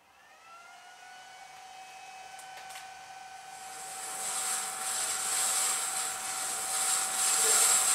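Hall and Brown No. 2 36-inch bandsaw started for the first time, its three-phase motor run from a variable frequency drive. The drive spins it up with a whine that rises in pitch over the first second and then holds steady, while a rushing hiss builds and grows louder as the saw comes up to speed.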